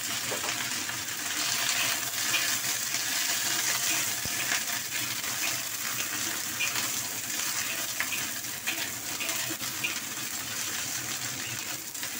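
Napa cabbage and carrot slices sizzling in hot oil in a wok, with a metal spatula scraping and clicking against the pan now and then as they are stirred.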